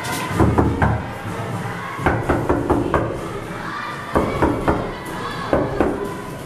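Knuckles knocking on a door in four quick rounds of about three to six raps each, with short pauses between the rounds.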